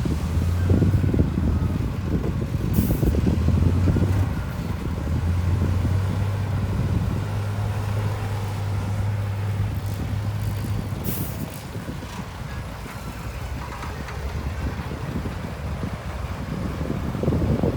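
Heavy diesel engine of earthmoving machinery running with a steady low drone that weakens about eleven seconds in. Two short hisses of air come about three and eleven seconds in.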